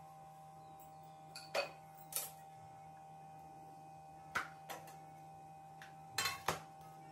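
Kitchen utensils and pans clinking and knocking lightly, several separate clinks with a pair close together near the end, over a steady faint hum.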